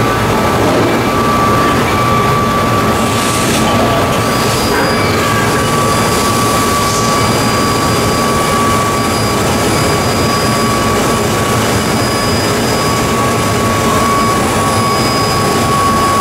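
Daewoo Puma 250B CNC lathe running under power, its chuck spinning, with a loud steady machine hum and a constant high whine. Brief hissing noises come in a few times between about three and seven seconds in.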